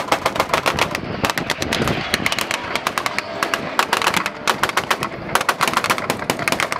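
Long rattling string of sharp cracks, several a second, like machine-gun fire: airshow pyrotechnics simulating gunfire during a mock Vietnam War air attack.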